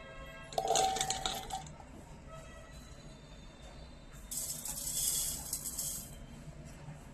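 Loose grapes clattering and clinking into a hard jar for about a second, then a steady hiss of something being poured in for about two seconds.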